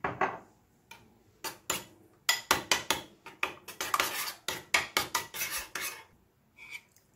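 Metal spoon stirring a thick yogurt and mayonnaise dip in a bowl, scraping and clinking against the bowl. After a few single taps, the stirring becomes a quick run of scrapes and clinks for about three and a half seconds, then stops.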